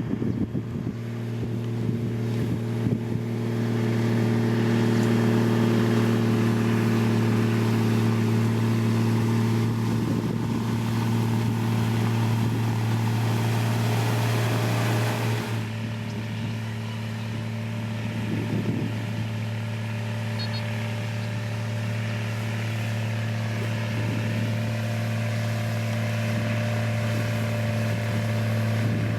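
Diesel engine of heavy road-construction machinery running steadily with a low, even hum. Extra rumble and hiss join in from about three seconds in and cut off suddenly about halfway through.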